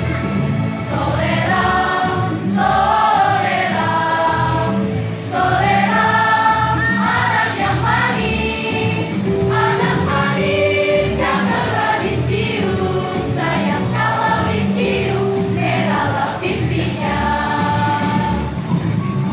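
A mixed choir of school girls and boys singing in chorus into microphones, with electronic keyboard accompaniment keeping an even beat underneath.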